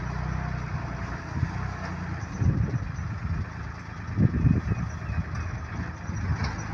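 Engine of a small farm tractor loader running steadily, briefly louder twice, about two and a half and four and a half seconds in, as it manoeuvres.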